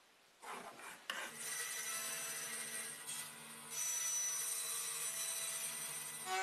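Small power saw running steadily while its blade cuts through plywood, with a rasping cut over the motor's even hum. It comes in about a second in and grows louder about midway.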